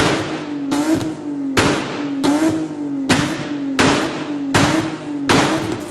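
Lexus IS200's 2.0-litre straight-six being revved in repeated throttle blips, about one every three quarters of a second. Each blip starts with a sharp burst and the engine note then sags before the next.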